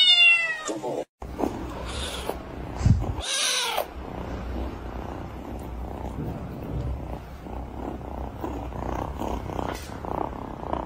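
A cat gives a loud, falling meow in the first second. Then a black-and-white kitten purrs steadily in close while it is stroked, with a brief high cry about three seconds in.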